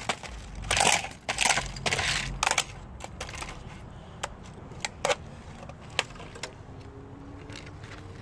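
Wooden-handled claw hammer smashing an old laptop on concrete. There are three heavy blows in the first three seconds, each a short rough crunch, then a handful of lighter sharp taps.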